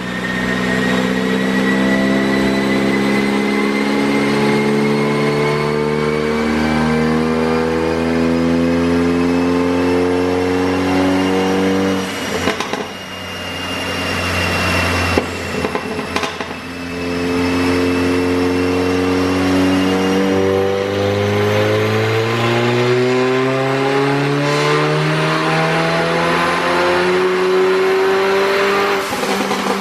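Mercedes-AMG CLA45's turbocharged 2.0-litre four-cylinder revving hard on a dyno in two long pulls, rising in pitch with a high whine climbing alongside. There is a lift-off in the middle with a sharp pop about 15 seconds in, from the pop-and-bang tune.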